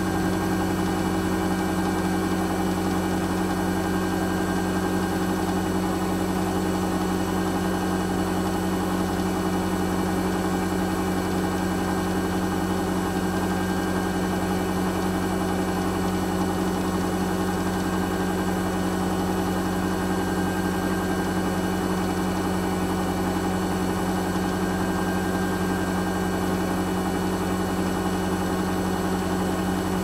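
Haier-built Hoover H-wash 300 Plus washing machine running partway through a 60 °C wash, giving a steady, even hum.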